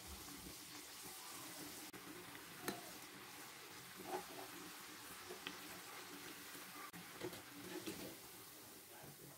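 Thuvaram paruppu (toor dal) vadai deep-frying in hot oil: a faint, steady sizzle with occasional small clicks.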